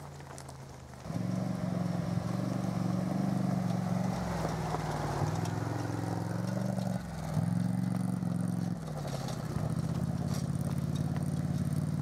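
Quad bike (ATV) engine running close by, starting about a second in and revving up and down several times with the throttle.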